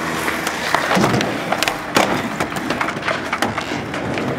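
Skateboards on concrete: wheels rolling with repeated sharp wooden clacks of boards striking the ground and ramps.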